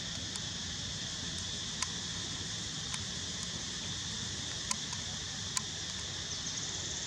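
Steady high buzz of insects, with a few short sharp clicks.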